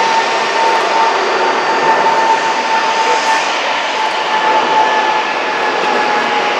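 Boeing twin-engine jet freighter climbing out after takeoff: the steady rush of its jet engines with a whine over it that slowly drops a little in pitch.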